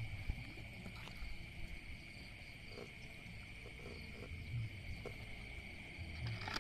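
Night chorus of crickets: a steady high trill, with a few soft low pulses underneath.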